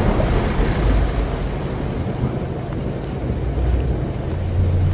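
Stormy wind noise over a deep low rumble. Near the end a low musical drone comes in.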